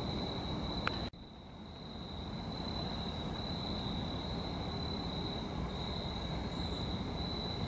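Crickets singing, a steady high-pitched trill, over a low rumbling background noise. About a second in, everything drops out abruptly and slowly swells back.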